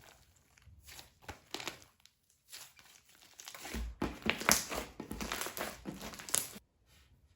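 Slime being squeezed and pressed by hand, giving irregular sticky crackles and small pops. These are sparse at first, grow busy about halfway through, and stop shortly before the end.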